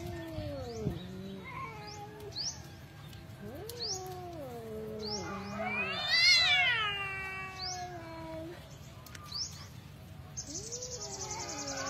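Two domestic cats caterwauling at each other in a face-off: a string of long, drawn-out, wavering yowls, the loudest one rising and falling in pitch about six seconds in. These are threat yowls between rival cats squaring up before a possible fight.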